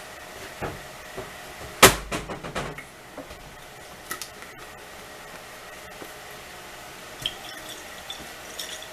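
Kitchen handling knocks as the wing-sauce bottle and mixing bowl are worked with: a sharp knock about two seconds in, followed by a quick run of lighter knocks, then a few scattered small clicks.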